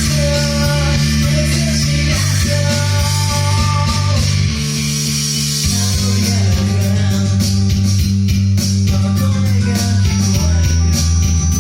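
Background rock music with guitars and bass, the bass notes changing every couple of seconds.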